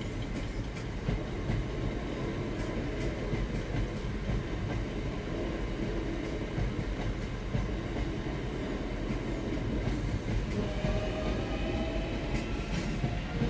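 Southeastern electric multiple-unit train rolling slowly over a level crossing: a steady low rumble with scattered wheel clicks over the rail joints. A rising tone joins in near the end as the last coach clears.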